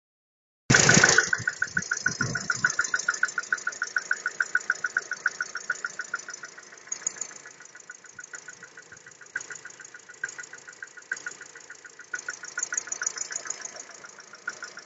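Skoda Rapid's EA211 1.6-litre MPI four-cylinder petrol engine catching about a second in on a cold start. It then idles with a rapid, even knock, about five beats a second, loudest just after the start and fading over the following seconds: the cold-start engine knock the owner is documenting.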